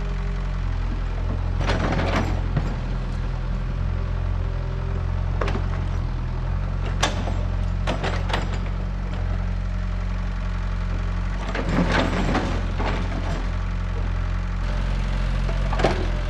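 Excavator's diesel engine running steadily with a low hum. Scattered sharp knocks and clatters come from the bucket working soil and stone, with clusters about two seconds in, around seven to eight seconds, about twelve seconds in and near the end.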